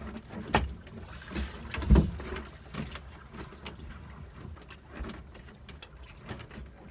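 Irregular knocks and clatter on a small wooden fishing boat over a low rumble, with the loudest thump about two seconds in.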